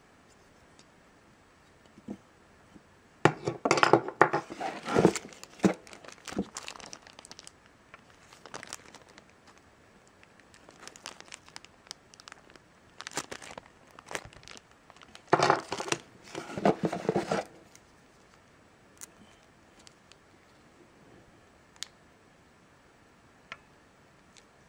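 Plastic packaging crinkling and rustling as it is handled, in two spells of crackle: a longer one a few seconds in and another past the middle, with a few light clicks between and after.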